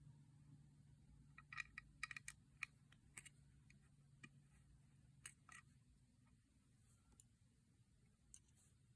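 Faint plastic clicks of Lego bricks being handled and pressed together: a quick cluster of clicks in the first few seconds, then a few scattered ones, over a low steady hum.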